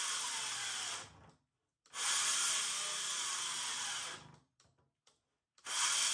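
Circular saw cutting through a sheet of plywood, a steady whining, hissing cut that breaks off twice for a second or so before going on again.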